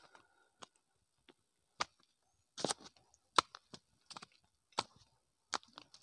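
Footsteps on a stony dirt trail: sharp crunches and scrapes of feet on loose stones and gravel at an uneven walking pace.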